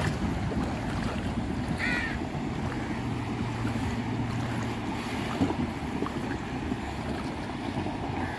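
Flowing river water and wind on the microphone, with a low engine hum for a couple of seconds in the middle from a Mahindra Scorpio wading through the river.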